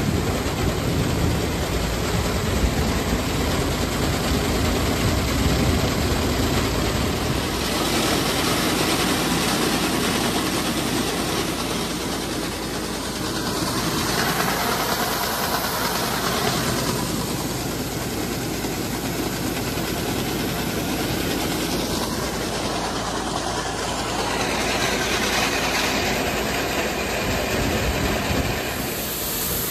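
Tractor-driven grain auger running steadily, with the tractor engine and the rush of grain seed pouring from the auger into a grain drill's hopper.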